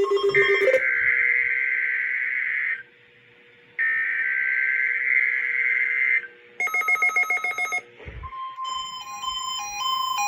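Emergency Alert System SAME header data bursts, the harsh digital screech of a weather radio alert, sounding twice with about a second's pause between them. They are followed by a short rapid electronic buzz and then a series of beeping electronic tones that step up and down in pitch.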